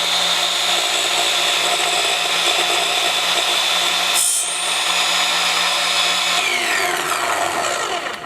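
Craftsman CMCS714M1 cordless miter saw running with its Diablo 62-tooth blade spinning at full speed, a steady whine broken briefly about four seconds in. Near the end the trigger is let go and the motor winds down in falling pitch. This is a no-load test run before the first cut.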